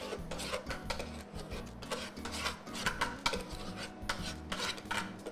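Spatula scraping thick batter out of a stainless-steel Thermomix bowl into a lined loaf mould: a series of irregular scrapes and rubs against the metal bowl.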